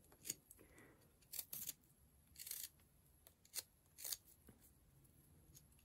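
Carving knife slicing thin shavings off a small piece of wood being rounded into a pipe: a handful of faint, short, irregularly spaced scraping cuts, one a little longer about two and a half seconds in.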